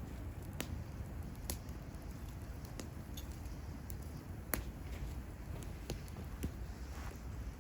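Wood fire crackling: sharp, irregular pops and snaps, the loudest about four and a half seconds in, over a steady low rumble.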